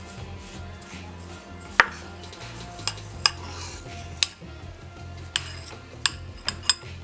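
Metal spoon clinking against a ceramic bowl while stirring grated coconut and condensed milk, about eight sharp clinks at irregular intervals over background music.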